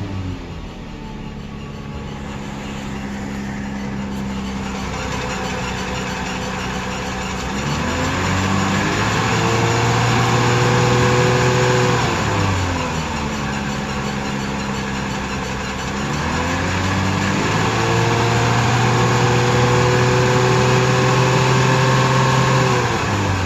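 Toyota Tacoma engine idling, then twice revved up and held at a steady higher speed for about four seconds before dropping back to idle.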